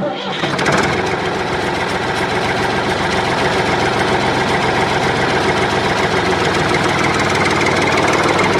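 Tractor engine running steadily with a fast, even knocking beat.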